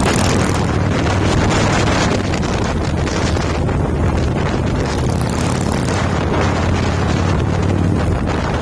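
Harley-Davidson V-twin motorcycle engine running steadily while riding, with wind rushing over the microphone.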